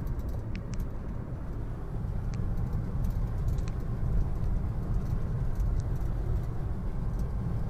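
Cabin noise of a car driving along a highway: a steady low rumble of engine and tyres on the road.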